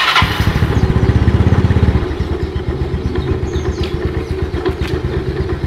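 Yamaha Mio Sporty scooter's single-cylinder engine running, louder for about the first two seconds and then settling to a steady idle. The scooter has a rough noise from the CVT at idle and on throttle, which the owner traces to the kick-starter pin rubbing against the pulley shaft.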